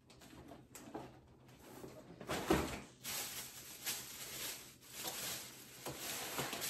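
Thin plastic grocery bags rustling and crinkling as items are dug out of them, with a single knock about two and a half seconds in.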